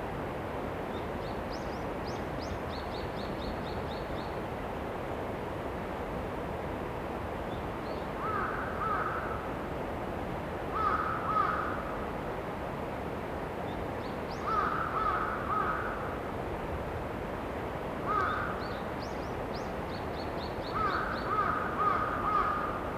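A crow cawing in short runs of two to five caws, repeated every few seconds from about a third of the way in. A small bird's high, rapid series of short call notes comes in near the start, the middle and the end, over a steady outdoor hiss.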